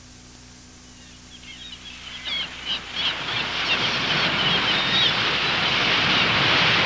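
Ocean surf building up steadily out of quiet, with seagull cries over it from about two seconds in: the surf-and-gulls sound effect that opens the recording.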